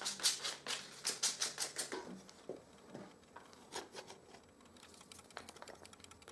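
Hand sanding of a plywood clamp jaw: quick back-and-forth sandpaper strokes, about five a second, which stop about two seconds in. After that, a few scattered light clicks as the silicone-gun clamp is handled and closed on a small wood block.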